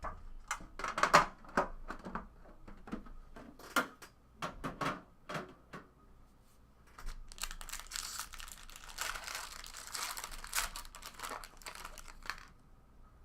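Handling sounds of cards and packaging with sharp clicks and taps, then about five seconds of continuous crinkling and tearing as a trading-card pack wrapper is opened.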